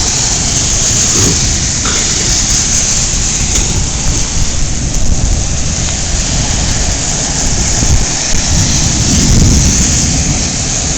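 Heavy rain falling steadily, with a low rumble of thunder underneath that swells a little near the end.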